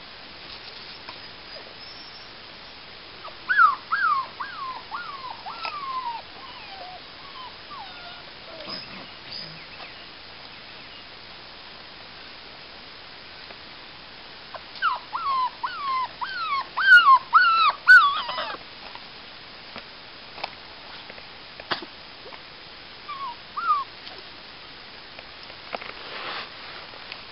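Five-week-old Alaskan Malamute puppies whimpering and yipping: a run of short, falling whines a few seconds in, a second, louder run in the middle, and a couple more near the end.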